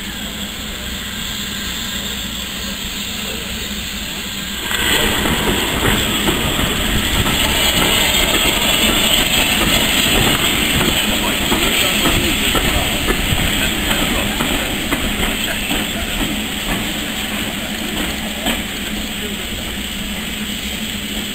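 Steam locomotive letting off steam: a loud hiss starts suddenly about five seconds in and eases off toward the end.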